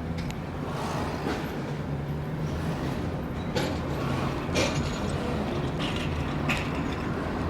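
A car with a faulty muffler driving: a steady low engine and exhaust drone, with several short knocks and rattles.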